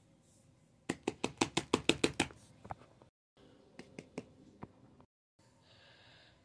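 A quick run of about ten sharp taps or clicks in a second and a half, then a few more scattered ones a couple of seconds later.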